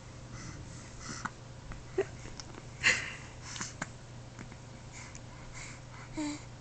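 A baby hiccuping, with soft breathy sounds between the hiccups: a few short, sudden hiccups, the loudest about three seconds in.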